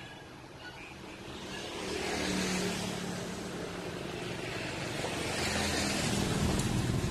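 A motor vehicle's engine running close by, with a steady low hum; it gets louder about two seconds in and again near the end.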